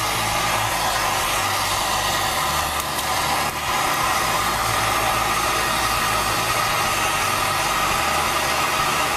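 Gas torch flame burning with a steady roar while it heats a large copper pipe fitting for soldering, the joint not yet hot enough to melt the solder.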